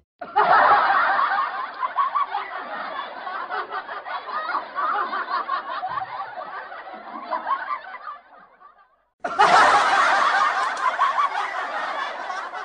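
Two laughter sound effects, one after the other: a long stretch of laughter that fades out about eight seconds in, then after a short pause a second, brighter burst of laughter.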